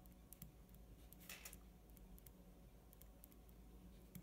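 Faint scratching and light ticks of a ballpoint pen writing on paper, over near-silent room tone.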